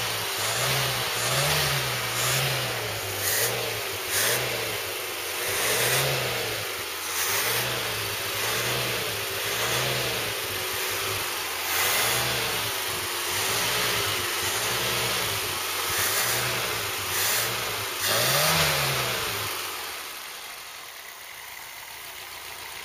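Freshly rebuilt Ford 2.0 Pinto single-overhead-cam four-cylinder engine running with no air cleaner fitted, revved in short throttle blips about once a second. The highest rev comes near the end, after which the engine sound dies down.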